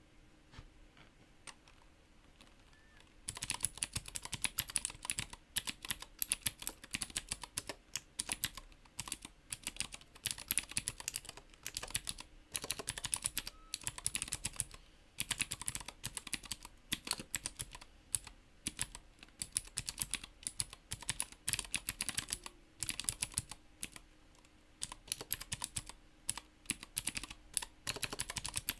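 Fast typing on a Whitefox mechanical keyboard in a CNC-machined aluminium case, with clicky Greetech Blue switches and Cherry-profile keycaps and no spacebar strokes. A dense run of sharp key clicks starts about three seconds in, with a few brief pauses.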